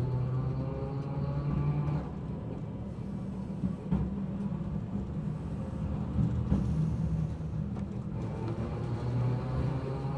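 Toden Arakawa Line streetcar running, heard from inside the car: a steady rumble of wheels on rail with the traction motors' whine sliding down in pitch at first and rising again near the end. A few sharp clicks from the running gear sound around the middle.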